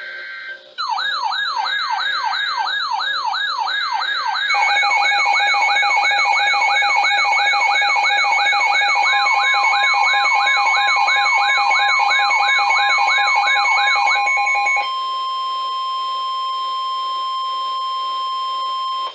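A brief burst of Weather Radio SAME data tones, then a warbling siren-like alert sweeping up and down about two and a half times a second, joined by steady alert tones about four seconds in. For the last four seconds only the steady single-pitch NWS warning alarm tone remains, the signal that opens a severe thunderstorm warning broadcast.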